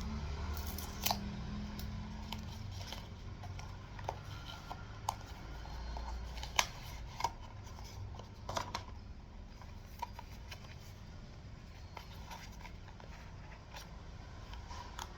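Scattered clicks, taps and light scraping of packaging and small parts being handled while unboxing a fitness band, over a low steady hum.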